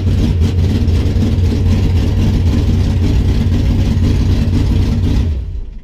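1973 Plymouth Duster's 340 small-block V8 running steadily on its first start after the cylinder heads were resurfaced and reinstalled to cure coolant getting into a cylinder. The sound cuts off shortly before the end.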